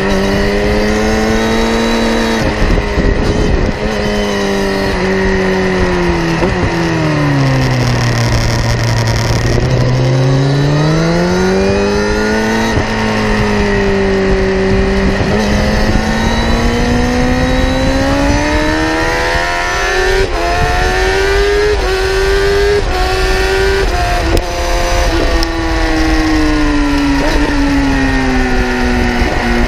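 Kawasaki ZX-10R's inline-four engine heard close to its exhaust silencer at speed on track. The revs fall to a low point about eight seconds in, then climb again and keep rising and falling through the rest of the stretch.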